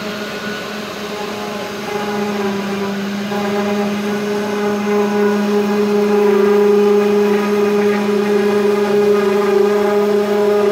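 CNC 3040 router's spindle running with a steady whine while its V-bit engraves lines into a wooden board. The sound grows louder about two seconds in and stays there.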